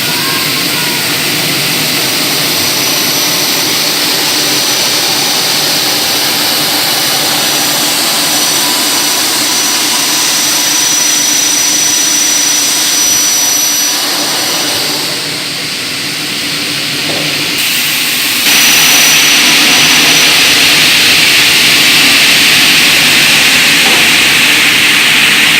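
Double-head aluminium cutting saw with 500 mm blades running, a loud steady whir with a thin high whine. It dips for a few seconds in the middle, then gets louder again about 18 seconds in.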